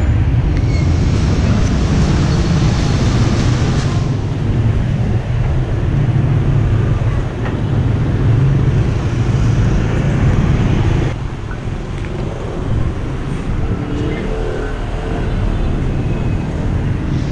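Street traffic noise: a steady hum of motor scooters and cars going by, heaviest in the low end, easing off a little about eleven seconds in.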